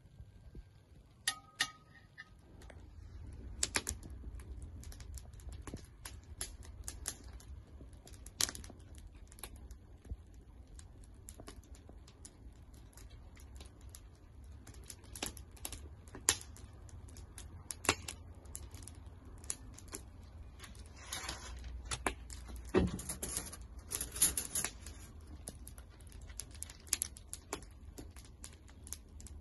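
Wood fire crackling, with irregular sharp pops and snaps over a low steady rumble of flames, mixed with light clinks of metal skewers being handled as chicken is threaded onto them.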